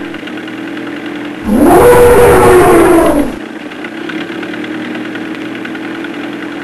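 Tank engine sound effect running steadily underneath. A loud monster roar rises and falls in pitch from about a second and a half in and lasts nearly two seconds.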